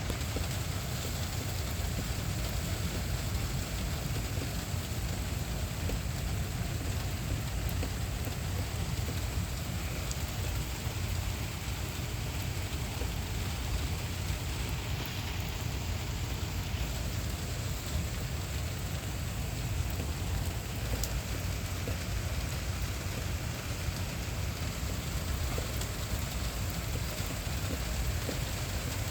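Steady thunderstorm rain falling, an even hiss with a heavy low rumble beneath it and no breaks.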